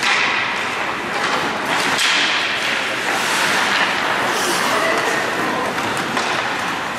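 Ice hockey play: skate blades scraping the ice and sticks and puck knocking, with a few sharp knocks, over indistinct shouting, echoing in an indoor rink.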